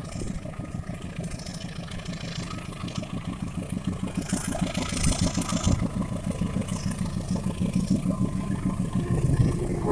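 KAI CC-class diesel-electric locomotive hauling a passenger train under full throttle, its engine throbbing steadily and growing louder as it runs past, with a brief rush of noise about halfway through.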